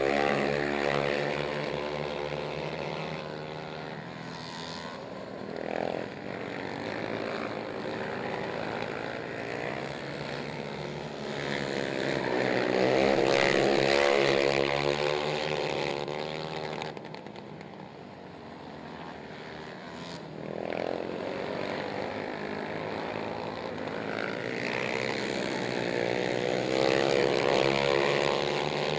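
Several racing ATV engines revving hard, their pitch rising and falling as the quads accelerate and back off through the turns. The engines are loudest as the quads pass closest, about halfway through and again near the end.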